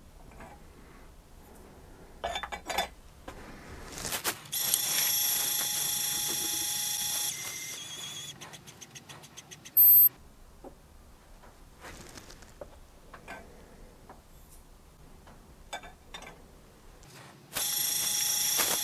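Lyman Gen6 electronic powder dispenser throwing a charge: the pan clinks back onto the scale, then the dispensing motor whines steadily for about three seconds and slows. A short, loud, high beep comes about ten seconds in, and the motor whine starts again near the end for the next charge.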